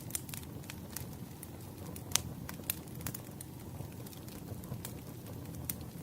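Firewood burning: a steady low rumble of flames with sharp crackles and pops at irregular intervals, the loudest about two seconds in.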